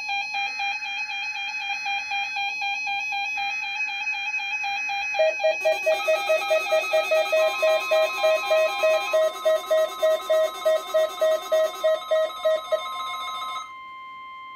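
Weather alert radio alarm tones sounding for a NOAA Weather Radio weekly test: a warbling tone, joined about five seconds in by a fast pulsing beep, about three a second, and further steady tones. Most of the tones cut off shortly before the end, leaving one steady tone.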